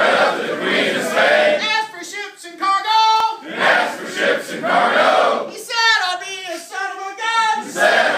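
Group of men singing a call-and-response campfire song: one man sings a line alone and the group shouts it back together, back and forth several times.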